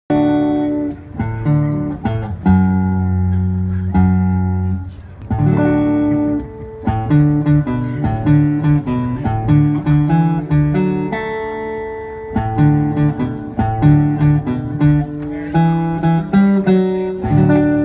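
Solo acoustic guitar playing an instrumental intro: a run of single picked notes over changing low bass notes.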